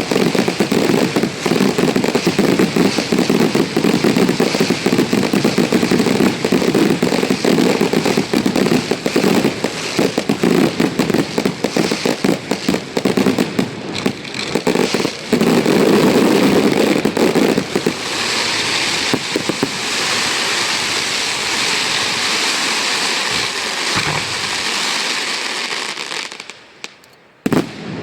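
Fireworks display in a dense, rapid barrage of bangs for the first two-thirds or so. It then gives way to a softer, even hiss, dies down, and a single sharp bang comes near the end.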